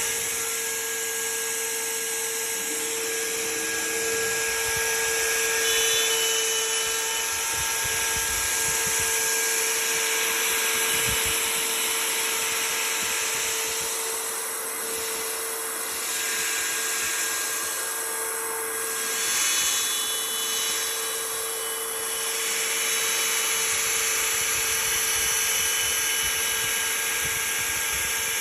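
Router spindle on a Legacy Maverick CNC machine running at speed with a steady whine, while the bit cuts a circular hole in a board. A hissy cutting noise swells and fades partway through.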